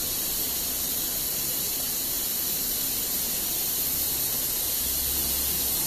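Steady hiss with a low hum underneath as a CNC router's gantry travels back to its home position; the hum strengthens slightly near the end.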